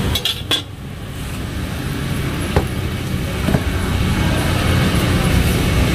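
Steady low rumble of road traffic going by, with two light clicks about two and a half and three and a half seconds in.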